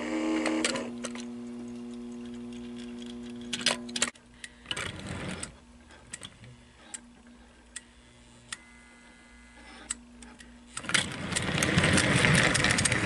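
Light clicks and clacks as toy train cars are handled and coupled on the track, over a steady electric hum in the first few seconds. Near the end the American Flyer 300AC toy steam locomotive sets off, its motor and wheels running along the track with a loud, busy clatter.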